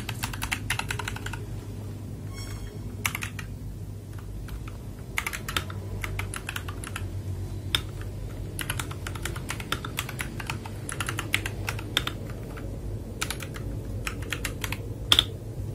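Typing on an FL Esports MK870 mechanical keyboard: irregular runs of key clacks with short pauses between them, and one sharper clack near the end.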